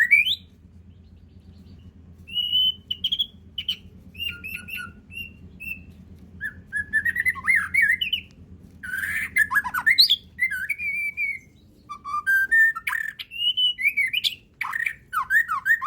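White-rumped shama (murai batu) singing a varied song: whistled notes, slurred glides and short rattling phrases, with brief pauses between bursts.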